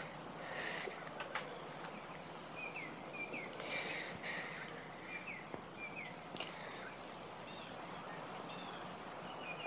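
Faint bird chirps, short curved notes coming a few at a time, over a steady background hiss.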